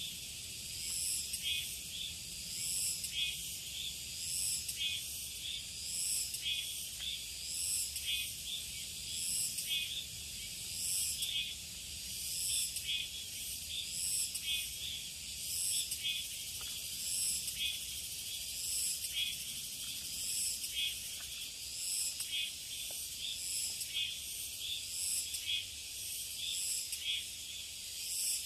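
Summer insects chirring in a high-pitched chorus that swells in even pulses about once a second, over a faint low rumble.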